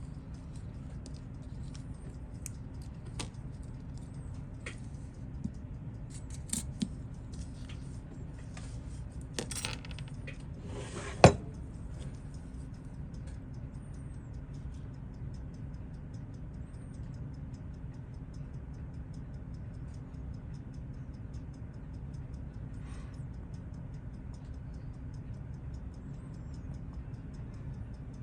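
Small sharp metallic clicks and taps of watchmaker's tools against the parts of a Seiko 6139 chronograph during disassembly, scattered over the first dozen seconds with one sharper click about eleven seconds in, over a steady low hum.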